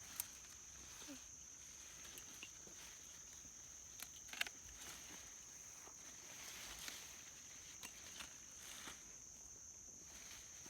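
Faint, steady high-pitched trill of crickets, with a few soft scattered clicks and rustles.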